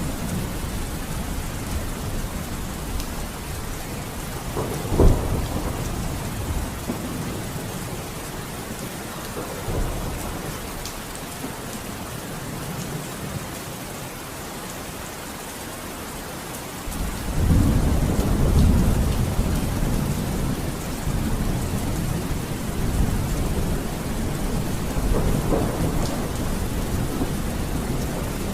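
Thunderstorm: steady heavy rain with thunder, a sharp crack about five seconds in and a long low rumble rolling in about two-thirds of the way through.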